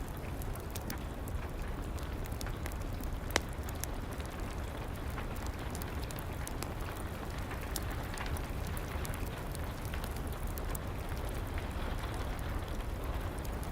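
Steady rain falling, with a wood fire crackling in a fireplace: many small crackles and one sharp pop about three seconds in.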